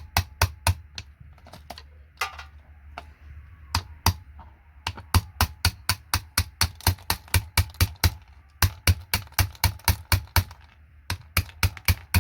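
Rapid runs of sharp plastic clicks, about four a second with short pauses between runs, from the parts of a vintage keyboard being worked on by hand.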